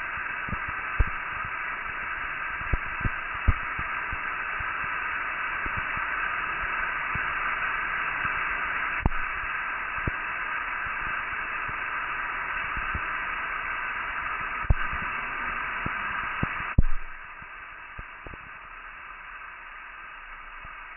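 Steady static-like hiss with scattered sharp clicks and pops. After a louder crackle about seventeen seconds in, the hiss drops sharply to a lower level.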